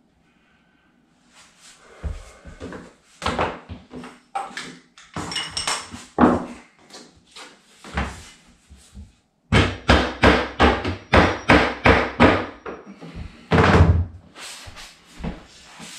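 Hammer knocking flooring planks into place on the floor. Scattered knocks come first, then a quick even run of about three sharp taps a second for some three seconds, and one heavier knock near the end.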